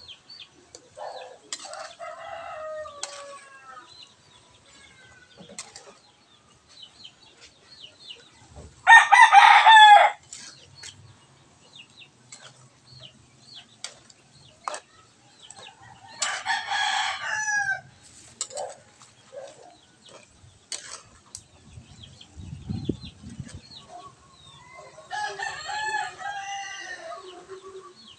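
Roosters crowing and chickens clucking: three loud calls, about a third of the way in (the loudest), just past halfway and near the end, with softer clucks between. Light clicks and scrapes of a metal spatula in a wok run underneath.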